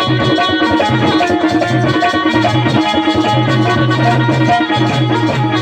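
Instrumental passage of Bundeli Rai folk music: drums keep a steady beat under a held melody line, with no singing.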